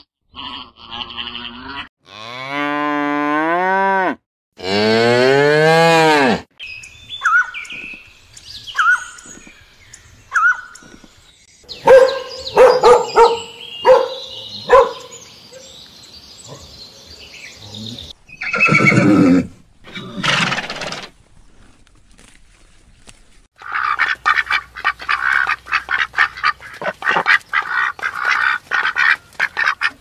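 A series of farm-animal calls. Two long calls with wavering, rising pitch come a few seconds in, then shorter calls and cries through the middle. A fast run of short, chattering calls fills the last six seconds.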